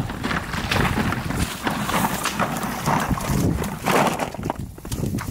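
Footsteps wading through shallow, muddy marsh water in waders: irregular splashing steps, with a dog splashing through the water as well.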